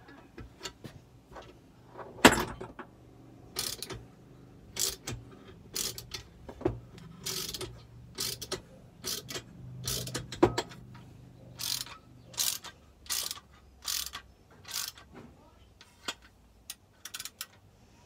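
A hand wrench working a threaded puller that draws a Stihl MS460 crankshaft and main bearing into the crankcase half, giving a series of sharp metallic clicks, about one or two a second and unevenly spaced.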